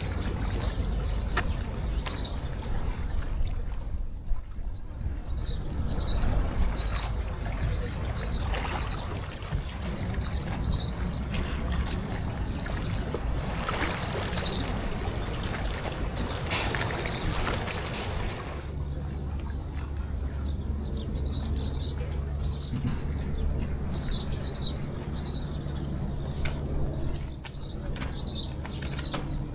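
Small birds chirping, short high chirps repeated in quick clusters, over a steady low rumble. A rushing hiss swells in the middle for about five seconds, then drops away.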